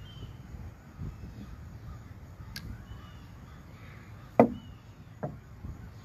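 Plastic chess piece set down on a roll-up vinyl board over a park table: one sharp knock about four seconds in, then a lighter tap under a second later. Faint bird calls in the background.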